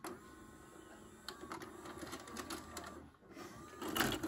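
White-Westinghouse WVCP-8000 VHS player ejecting a cassette. The STOP/EJECT button clicks, then the loading mechanism's motor whirs steadily for about three seconds with small clicks as it unloads the tape. A louder clatter comes near the end.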